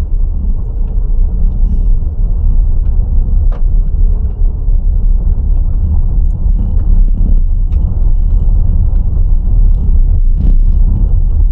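Steady, loud low rumble with a few faint clicks scattered through it.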